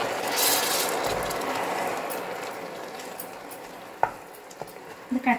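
Hot caramelized sugar sizzling and bubbling in an uruli as water is stirred into it with a wooden spoon, the hiss slowly dying down as the pan cools. A single click about four seconds in.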